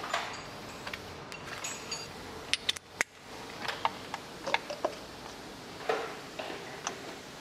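Irregular metallic clicks and clinks of a ratchet and socket working loose the plug on the engine's oil filter housing.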